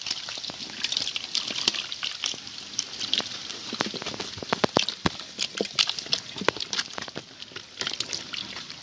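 Many small live fish thrashing in shallow water in a basin: a dense, irregular patter of splashes and flicks.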